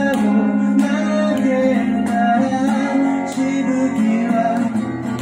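A man singing into a microphone while strumming an acoustic-electric guitar, live.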